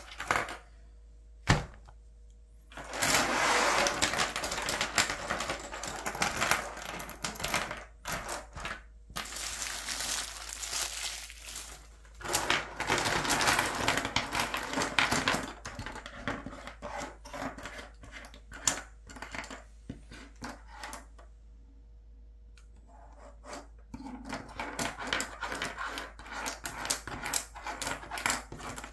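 Plastic ballpoint pens clattering and clicking against one another and sliding on a tabletop as they are pushed into rows. The clatter comes in two long stretches with a quieter spell between, after a single sharp knock near the start.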